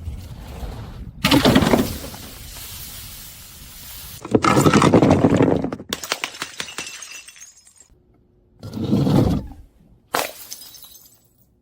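Glass bottles being crushed, shattering and crunching in four bursts: one about a second in, a longer one around the middle, and two short ones near the end, with fainter crackling of broken glass between them.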